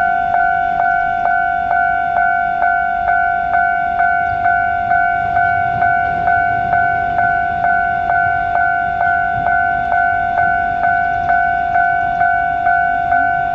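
Japanese railway level-crossing warning bell ringing: an electronic ding repeating evenly a little over twice a second, warning of the approaching tram.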